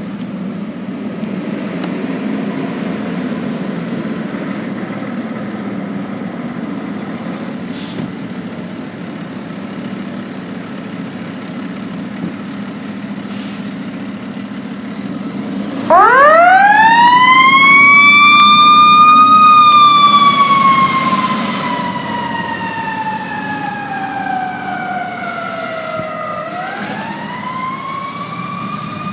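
Fire truck's heavy engine running steadily. About halfway through, its siren winds up sharply to a loud peak, slowly winds down over several seconds, then winds up again near the end.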